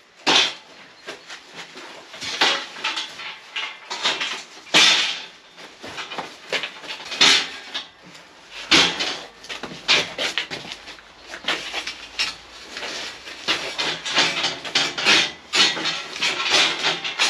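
Metal barred door being carried and set into a concrete doorway: irregular knocks and clatters of the metal frame against concrete and against itself as it is handled.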